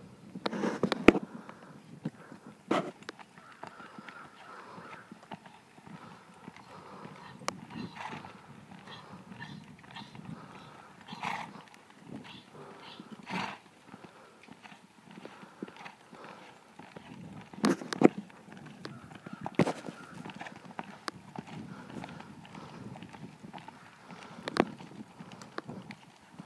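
A ridden horse moving on a soft dirt arena: muffled hoofbeats with a few sharper knocks at uneven intervals, the loudest a cluster about a second in and another about eighteen seconds in.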